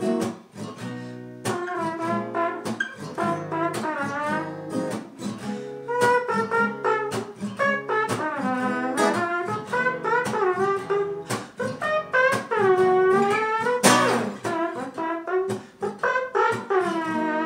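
Small-bodied acoustic guitar played in a blues rhythm, with a wordless, horn-like vocal line gliding over it as an instrumental break between verses.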